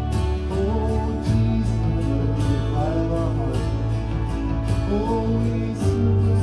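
Worship band playing a slow song between sung lines, with held bass notes, sustained chords and guitar. The chord changes about a second in and again near the end.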